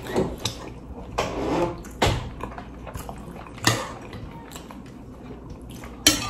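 Eating sounds at a table: scattered soft clicks, smacks and brief rustles from mouths chewing and fingers picking food off plates, coming at irregular intervals with a sharper click near the end.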